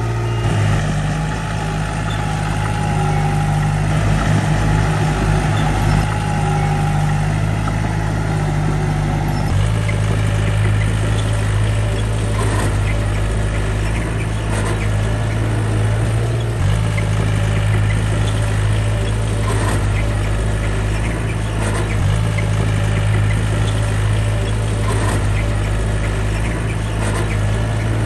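Diesel engine of heavy earthmoving machinery running steadily, with a slight change in pitch now and then and faint knocks.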